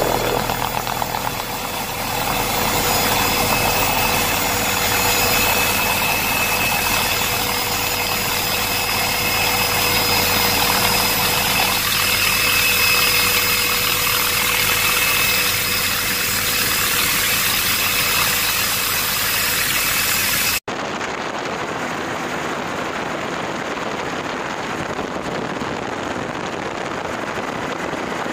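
Steady helicopter engine and rotor noise as heard from on board, a continuous drone with a high steady whine. About two-thirds of the way through it cuts abruptly to a different, duller steady drone.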